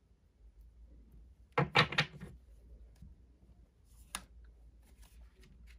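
Tarot cards handled on a tabletop: a quick cluster of three or four sharp taps about a second and a half in, then one single click about four seconds in.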